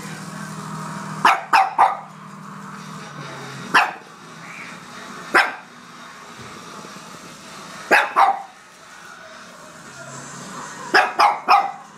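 Pekingese dog barking in short sharp barks, about ten in all: three quick barks about a second in, then single and paired barks, and three more quick barks near the end. A low steady hum runs underneath at the start and again near the end.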